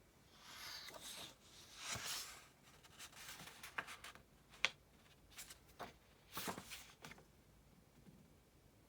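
Paper rustling as a book page is turned: two soft swishes in the first two seconds, then a run of light taps and clicks as the book and pages are handled.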